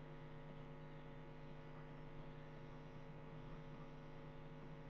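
Faint, steady electrical mains hum in the recording, a low hum with a ladder of evenly spaced overtones and nothing else.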